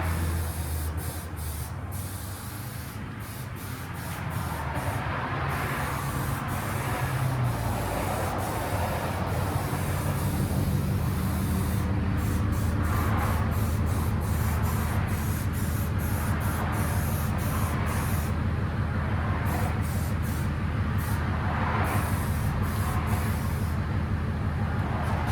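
Paint spraying: a spray gun hissing in repeated passes that swell and fade, over a steady low mechanical hum that builds over the first few seconds and then holds.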